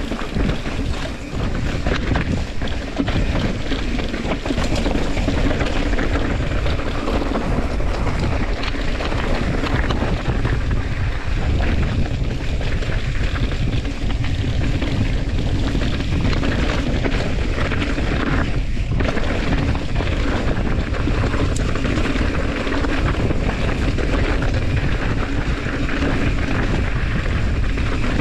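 Wind rushing over the microphone of a mountain bike camera, mixed with the tyres and bike rattling over a rocky dirt trail, steady throughout.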